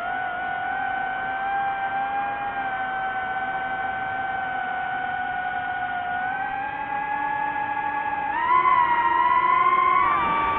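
DJI FPV drone's motors and propellers whining steadily, with the pitch and loudness stepping up about eight seconds in.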